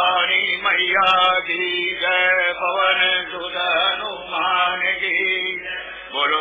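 Devotional chanting: voices sing a hymn or mantra in continuous melodic phrases, one sung line running into the next.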